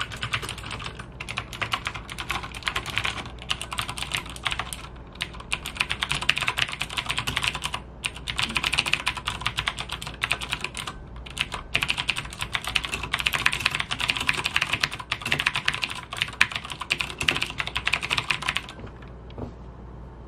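Fast typing on a Logitech G610 mechanical keyboard with clicky Cherry MX Blue switches, a dense run of keystrokes broken by short pauses, stopping shortly before the end.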